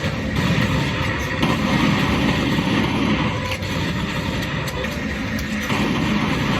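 Steady low rumble of a moving vehicle heard from inside, with faint, indistinct voices.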